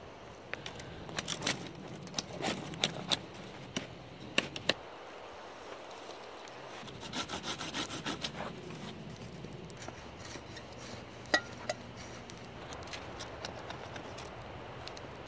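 Knife shaving bark off a green wooden stick in irregular scraping strokes, pausing near the middle and then a quicker run of strokes after about seven seconds.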